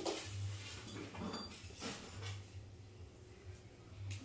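Kitchen knife cutting and trimming raw chicken pieces by hand: a few soft scraping strokes, one at the start and another about two seconds in, with a low hum coming and going.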